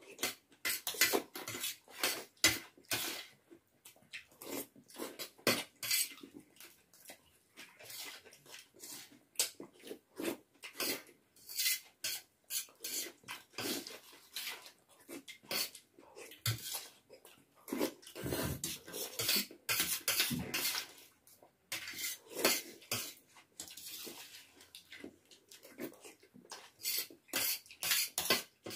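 Metal forks clinking and scraping on steel plates while two people eat noodles, with wet slurping as noodles are sucked in, in many short, irregular sounds.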